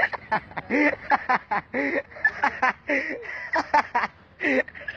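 Fast, excited human voices, talking and calling out in quick short syllables without clear words.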